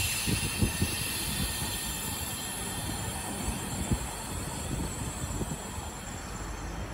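V set double-deck electric train moving off and pulling away: a low rumble with scattered knocks from the wheels on the rails, slowly growing quieter. A high hiss of air dies away over the first few seconds.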